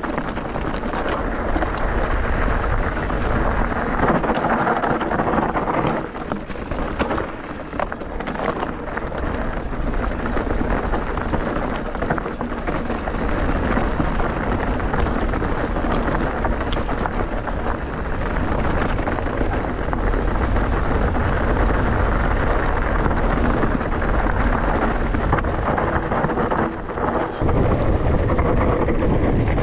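Wind buffeting the microphone of a camera riding along on an e-bike, a steady noisy rush with a strong low rumble underneath.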